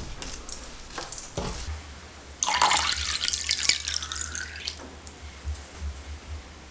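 Kitchen tap running into a sink for about two and a half seconds, water splashing, after a few light knocks.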